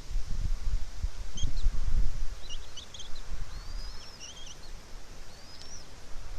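Birds chirping: scattered short high chirps and a couple of rising whistled calls, over a steady low rumble of wind on the microphone.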